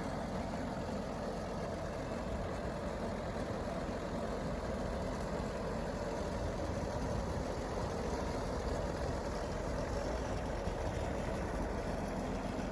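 Rebuilt John Deere 4430's six-cylinder turbocharged diesel engine running steadily under full load while the tractor pulls mowers, exhausting through a muffler rather than a straight pipe.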